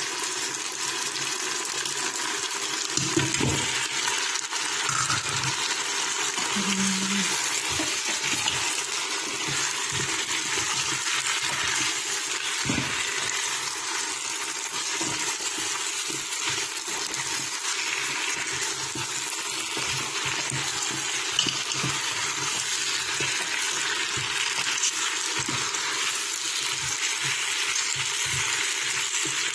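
Beef frying with onions and tomatoes in an electric pressure cooker's inner pot: a steady sizzle, with a spatula stirring and knocking against the pot many times.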